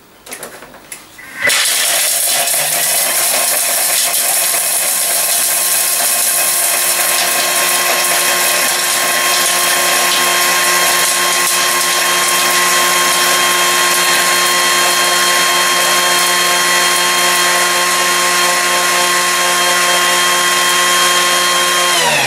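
Thermomix TM31 food processor running at top speed (speed 10), its blade grinding frozen Toffifee sweets to a powder. A loud, steady whine starts about a second and a half in, holds for about twenty seconds, and winds down with falling pitch near the end.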